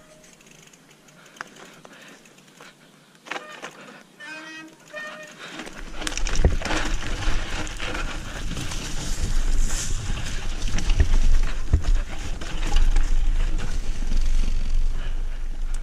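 A Trek Remedy 7 full-suspension mountain bike gets rolling about six seconds in, and the sound grows loud and rough. Wind buffets the microphone over the rumble and rattle of the tyres and the bike on the trail.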